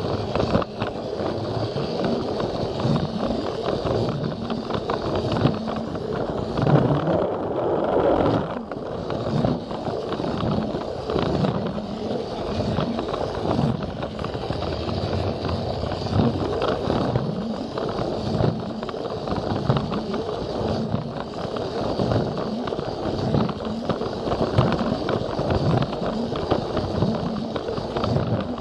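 Battery-powered Plarail toy train running along plastic track, its small motor whirring and its wheels rattling and clicking over the track.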